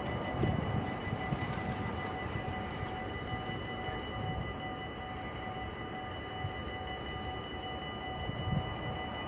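Level-crossing warning bell ringing steadily, with wind buffeting the microphone.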